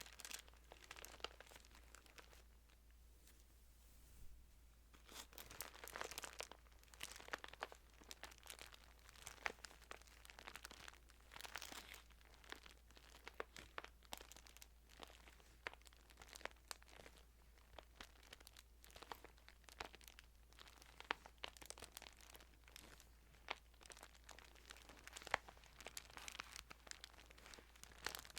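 Thin Bible pages being handled and turned: soft paper rustles and crinkles with many small crisp ticks, pausing briefly about three seconds in.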